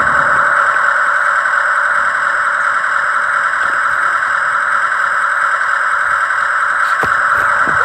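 Radio-controlled construction machine's electric motors and hydraulic pump whining steadily under load, with a few short knocks near the end.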